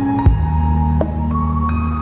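Ambient background music: sustained bass and held higher notes, with the chord changing about a quarter second in.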